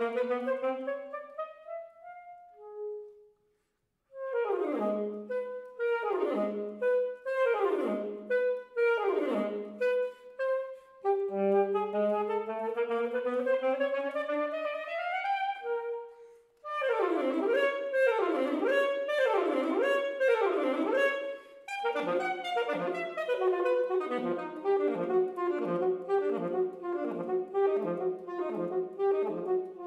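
Unaccompanied alto saxophone playing a fast classical solo: a rising phrase, a short break, then quick downward runs about once a second, a slow climbing line, more rapid runs, and near the end a long string of quick short notes.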